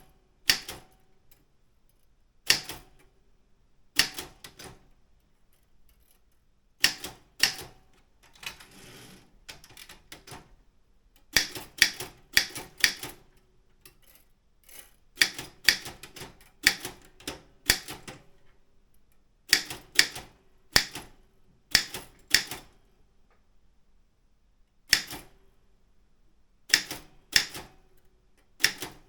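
Daro Optima M16 manual typewriter being typed on: sharp type-bar strikes, singly and in quick runs of two to four, with pauses between. A longer rasping sound comes about nine seconds in.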